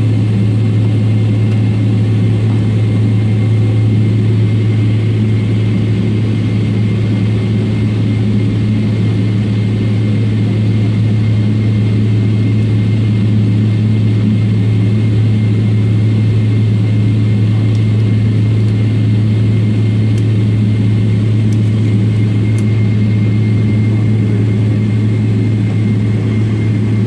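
Steady cabin noise inside a Boeing 777-300ER over the wing, its GE90-115B turbofans at idle while taxiing: a loud low hum under a rushing noise, with a thin steady high whine.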